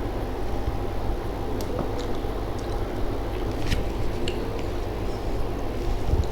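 A person chewing soft food with wet, squishy mouth sounds, a few faint clicks here and there, over a steady low hum.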